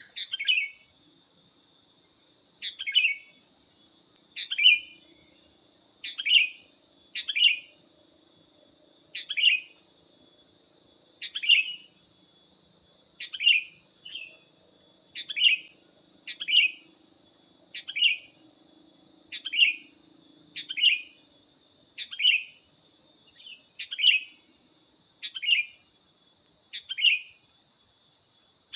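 A short, sharp bird call, sweeping downward, repeated about once every one to two seconds, over a steady high-pitched insect drone.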